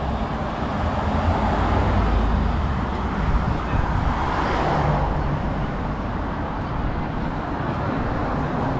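Street traffic noise: road vehicles running along a town street, a steady rumble that swells briefly about halfway through.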